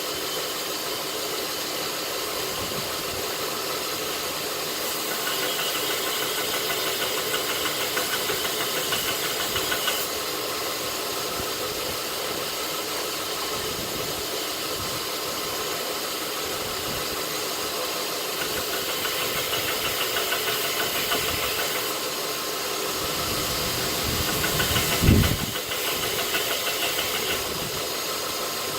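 North Ridge Tool belt grinder running with a steady motor hum, with two longer stretches of steel being ground on the belt, one about five seconds in and another from about nineteen seconds. A single sharp knock, the loudest sound, comes near the end.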